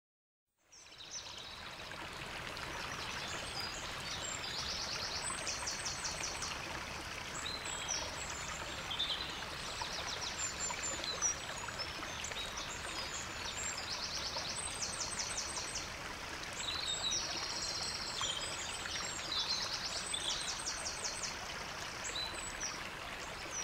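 Steady rush of a running stream, fading in within the first second, with birds chirping and trilling over it again and again.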